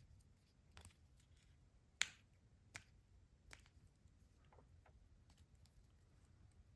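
Faint clicks and light plastic handling noise from a trading card and its plastic sleeves being handled, with the sharpest click about two seconds in.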